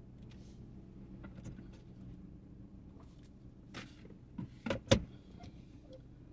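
Car engine idling steadily, heard from inside the cabin. A few short clicks and knocks come about four seconds in, the loudest a sharp click near five seconds.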